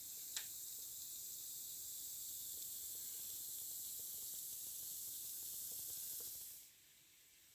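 Steady high fizzing hiss of gas bubbles from a rust-removal electrolysis bath, with one light click about half a second in; the fizzing cuts off suddenly near the end.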